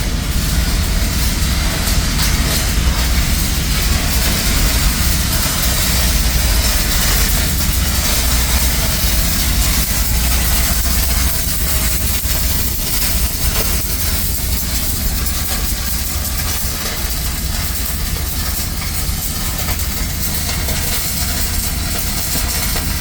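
Steady rumble and hiss of an exhaust fan blowing air into a 66-inch steel pipe, with a welder at work on the pipe joints.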